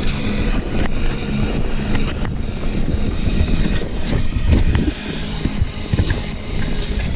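Mountain bike rolling fast over a dirt trail with wind buffeting the microphone: a steady rushing rumble with scattered knocks and rattles from the bike, loudest about four and a half seconds in, then easing off a little.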